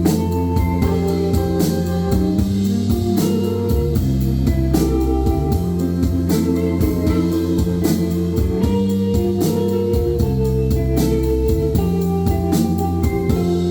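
Live band playing an instrumental break in a pop-rock song: electric guitar, keyboard organ, bass and drum kit with a steady beat, no vocals.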